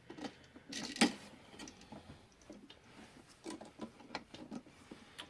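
Light clicks and taps of a plastic wall receptacle and its wires being handled and shifted into place, with one sharper click about a second in.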